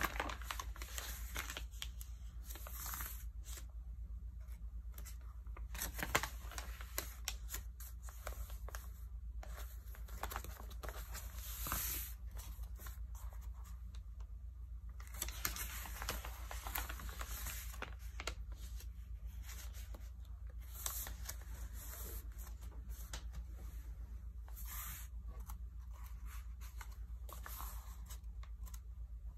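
Pages of a Vogue magazine being handled: a hand rubbing and pressing the wrinkled paper and turning pages, giving irregular crisp rustling and crinkling with scattered sharp ticks.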